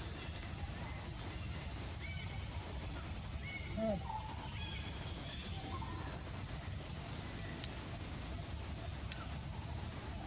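Tropical forest ambience: a steady high-pitched insect drone, with a few short animal calls, the loudest a brief falling call about four seconds in.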